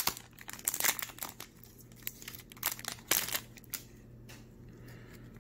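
Foil wrapper of a Magic: The Gathering booster pack crinkling and tearing as it is opened by hand, in a run of short, irregular rustles that stop about four seconds in.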